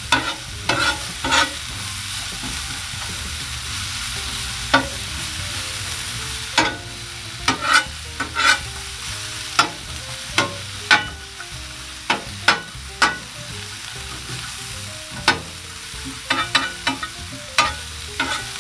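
Sliced onions sizzling on a Blackstone griddle's steel flat-top, with a metal spatula repeatedly scraping and clacking against the steel as they are tossed and spread. The scraping stops for a few seconds near the start, leaving only the steady sizzle, then resumes.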